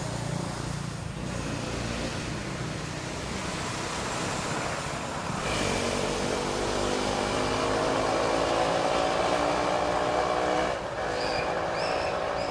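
A motor vehicle engine running steadily, growing louder and fuller about five seconds in and easing off a little near the end. A few short high chirps come near the end.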